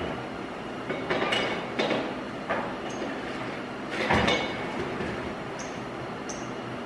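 Metal oven rack and the steel motorcycle parts hung on it rattling and clanking as they are handled inside an electric oven, in a few short bursts with the loudest about four seconds in, then two light metallic clinks near the end.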